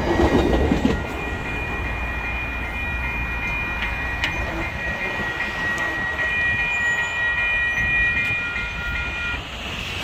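Railroad grade-crossing bells ringing steadily as the tail of an MBTA commuter train clears the crossing, its wheel noise dropping away after about a second. The bells stop shortly before the end, once the gates have risen.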